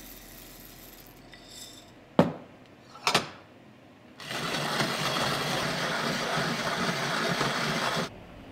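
Cast-iron hand-crank coffee grinder: two sharp clicks, then about four seconds of steady grinding of coffee beans that stops abruptly.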